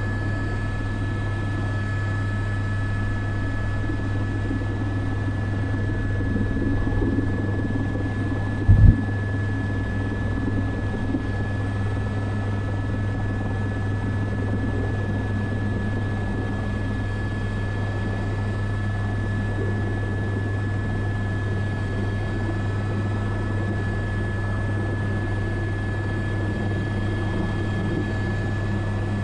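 Cockpit sound of an Airbus AS350 B3 helicopter in flight: the steady drone of its single turbine engine and rotors, with a constant high whine above it. A brief low thump about nine seconds in.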